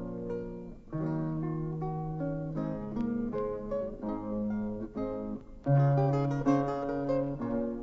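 Acoustic guitar music: a run of plucked notes, with a louder chord a little over two-thirds of the way through.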